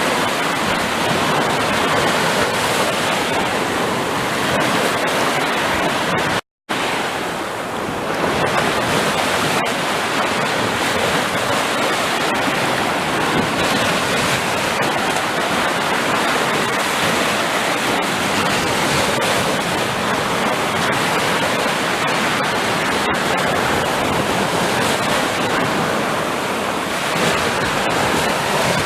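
Sea surf: waves washing and breaking on a shore in a steady rush with gentle swells. The sound cuts out completely for a split second about six and a half seconds in.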